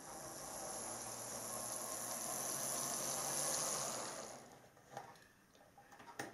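Non-digital model Deltic diesel locomotive D9003 Meld running along the layout track: its small electric motor and wheels on the rails make a steady whirring hiss that grows louder, then fades away about four and a half seconds in as it stops. A few light clicks follow near the end.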